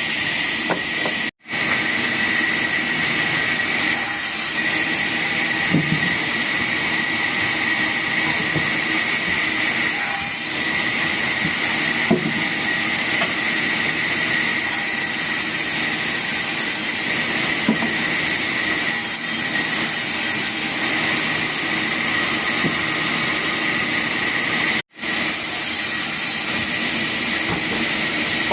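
Woodworking machinery running with a steady hiss and a constant high whine. The sound cuts out for an instant twice, about a second in and near the end.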